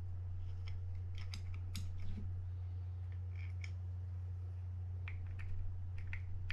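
Scattered light metallic clicks and scrapes of a flathead screwdriver tip working against a Quantum Catalyst spinning reel's body, prying at a part held fast by a stuck bearing.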